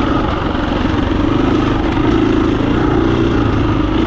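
KTM 350 EXC-F dirt bike's single-cylinder four-stroke engine running steadily while being ridden, its pitch wavering a little.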